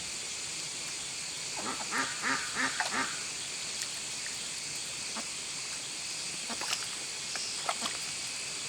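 Ducks quacking: a quick run of about six quacks, followed by a few scattered faint clicks.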